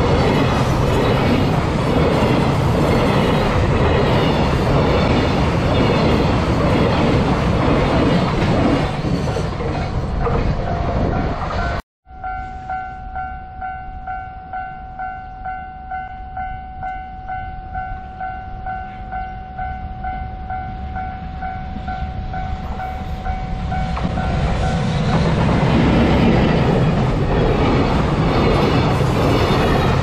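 JR Freight container wagons rolling past at a level crossing. After a cut about twelve seconds in, the crossing's warning alarm rings as a steady pulsing two-tone, about twice a second, while the next freight train, hauled by an EF210 electric locomotive, draws near. Its wagons are running past by the end.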